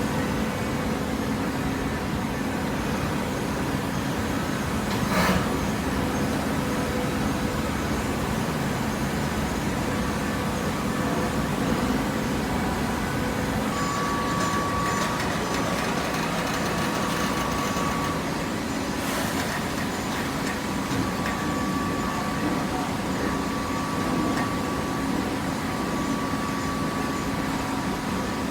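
Hydraulic cardboard baler running: a steady machine hum, with a higher whine that comes in twice for several seconds and two sharp clanks, one about five seconds in and one near the middle.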